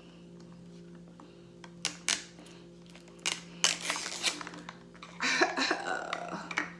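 Small plastic toy packaging being handled and opened: several sharp clicks and snaps around two seconds in and again a little later, then crinkling toward the end.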